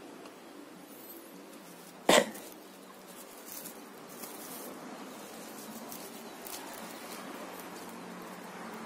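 Clear plastic grafting wrap handled and crinkling in the fingers, as faint scattered crackles, with one short, loud, sharp sound about two seconds in.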